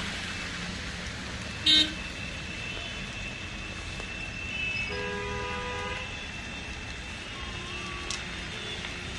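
Street traffic with car horns: one short, loud horn toot about two seconds in, and a quieter horn sounding for about a second near the middle, over a steady low rumble of traffic.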